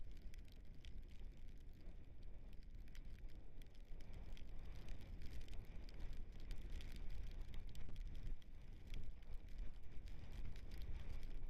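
Dog scooter rolling over a muddy dirt trail behind two running dogs, heard through a camera mounted on the scooter: a constant low rumble from the tyres and frame, with many scattered sharp ticks and rattles.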